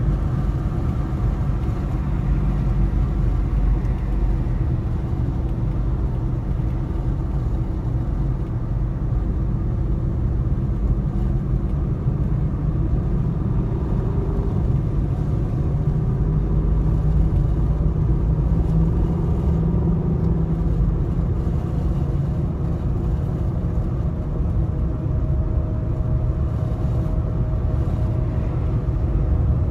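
Steady low rumble of a car's tyres and engine at cruising speed, heard from inside the cabin. Midway a faint engine note rises and falls a little.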